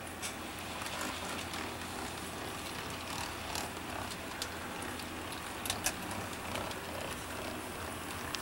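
HO-scale model freight train rolling along the layout's track, its small wheels giving irregular light clicks over rail joints and turnouts, with a faint steady hum underneath.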